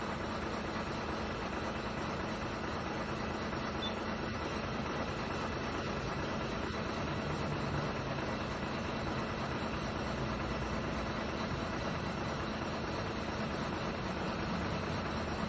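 A stopped lorry's engine idling steadily.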